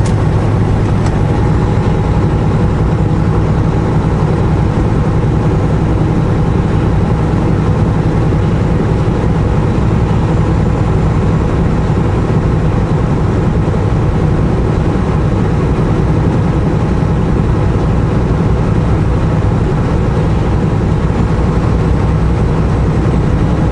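Semi truck's diesel engine and tyre noise heard from inside the cab while driving at a steady speed: an even, unchanging low drone.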